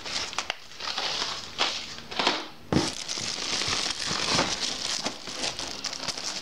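Plastic-wrapped cardboard boxes being shuffled and lifted out of a cardboard carton: irregular crinkling of cellophane and scraping of cardboard, with several louder rustles.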